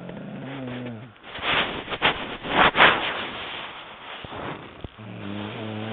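A sleeping woman snoring: two low, buzzing snores about five seconds apart, one at the start and one near the end. Between them come louder, noisy breathy bursts.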